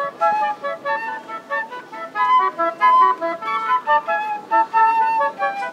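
A transverse flute and a second woodwind playing a quick melody together in two parts, note following note in a steady run.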